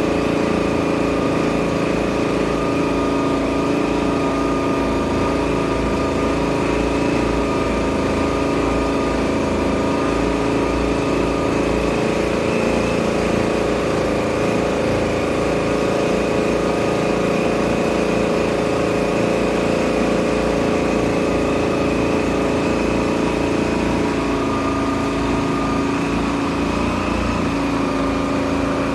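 Boat engine running steadily at a constant speed, a loud even drone that shifts slightly in pitch about 25 seconds in.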